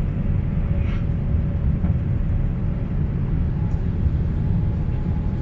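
Steady low rumble inside the cabin of a Boeing 787-8 Dreamliner shortly after takeoff: engine and airflow noise as the airliner climbs.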